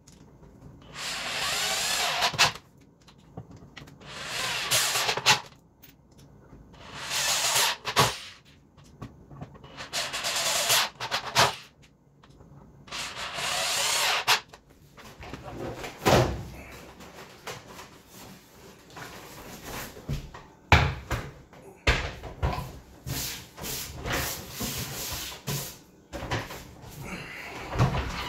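Corded electric drill working into wood in about five short bursts of a second or two each, with a whine under the noise. In the second half come sharp knocks and thumps of the wooden counter being handled.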